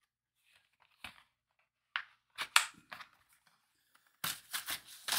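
Cardboard parts packaging being handled as model kit parts are taken out: a few soft scrapes and taps, then a denser stretch of louder rustling in the last second.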